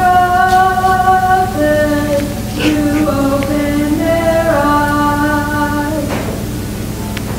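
A voice singing a slow tune of long held notes, stepping from one pitch to the next and stopping about six seconds in.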